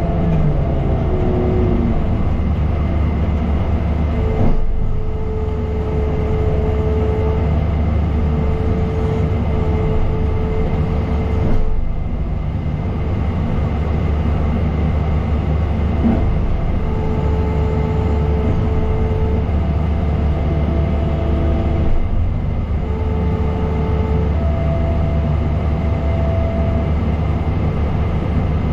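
Diesel engine of a compact earthmoving machine running hard under load, with a whine that comes in and drops out every few seconds as the machine is worked. A few dull knocks come at intervals.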